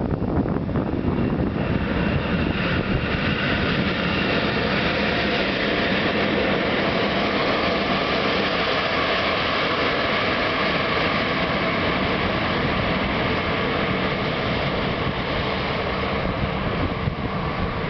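ET42 twin-section electric freight locomotive passing close by at speed: a steady rumble of wheels on rail with a faint steady whine over it, easing slightly as it moves away near the end.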